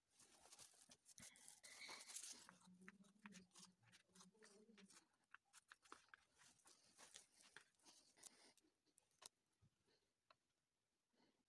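Faint rustling and light taps of cut glitter-foam flowers and foam scraps being handled and set down on a tabletop.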